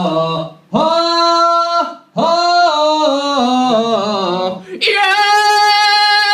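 A man singing unaccompanied into a handheld microphone, in short phrases with brief breaths between them and stepping down in pitch, then holding one long high note near the end.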